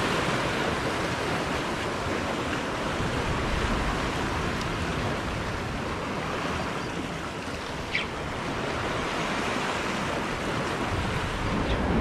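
Sea surf breaking and washing over the boulders of a rock jetty, a steady rush of water. There is one short click about eight seconds in.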